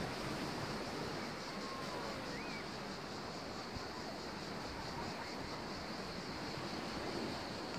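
Steady seaside ambience: wind on the microphone and the wash of the sea, with faint far-off voices.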